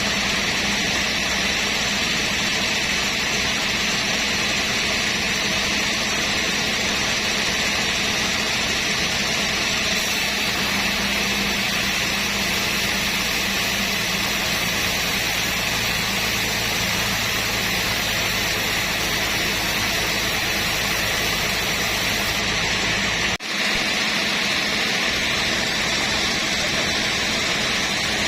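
Sawmill machinery running steadily with a loud, even noise, broken only by a momentary dip about 23 seconds in.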